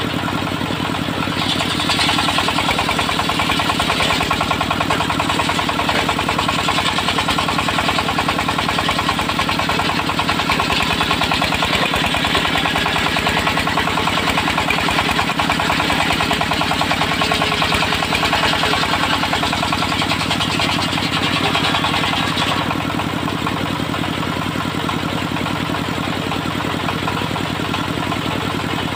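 Engine-driven homemade circular sawmill running steadily. From about a second and a half in, a higher hissing sawing noise joins the engine as the blade cuts through the log. It stops about seven seconds before the end, leaving the engine running on alone.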